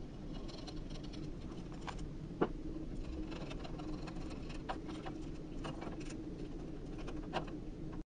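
Scattered small metallic clicks and taps as nuts and lock washers are threaded by hand onto a U-bolt through a steel pole-mounting bracket, the sharpest click about two and a half seconds in, over a steady low hum.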